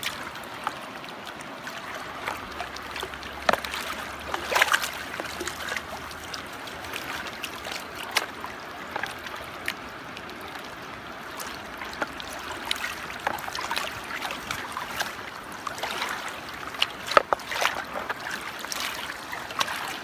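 Shallow creek water running over rocks and through a gold pan set in the current, with scattered small splashes.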